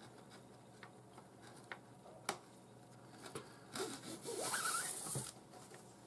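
Nylon 550 paracord rubbing and sliding against itself as a strand is pulled through a knot loop: faint handling clicks, then a longer hissing rub of cord on cord about four seconds in.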